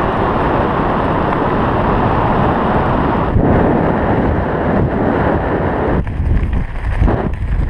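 Airflow buffeting the microphone of a hand-held camera during a tandem parachute descent under an open canopy: a steady rush of wind, turning gustier, with an uneven low rumble, from about six seconds in.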